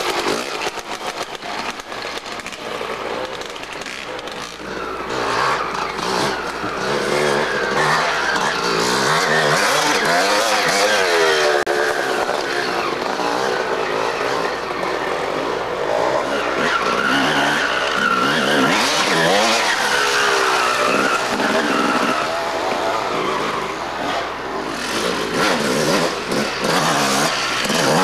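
Off-road motorcycle engines revving up and down as dirt bikes ride past one after another, the pitch rising and falling again and again as the riders work the throttle through the trail.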